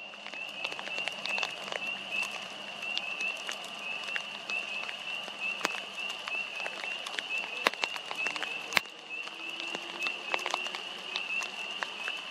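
A frog chorus calling steadily, a high, even run of rapid peeps with no break, with scattered sharp ticks of rain dripping throughout.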